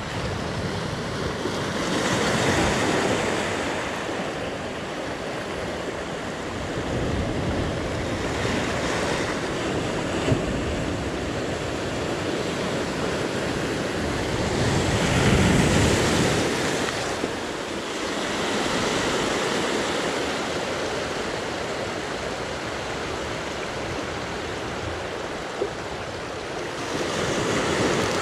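Sea surf breaking and washing on the shore. The wash swells and falls every few seconds, loudest about halfway through.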